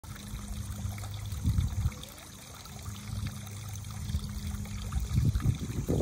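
Small stone birdbath fountain running: water bubbling up in the upper boulder basin and trickling and splashing steadily down into the lower basin. Low rumbles swell over it about a second and a half in and again near the end.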